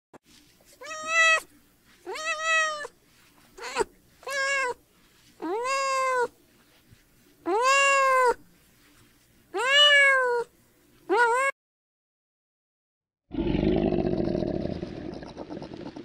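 A cat meowing about eight times, each meow under a second long and rising then falling in pitch. After a short silence near the end, a long rough, noisy sound begins.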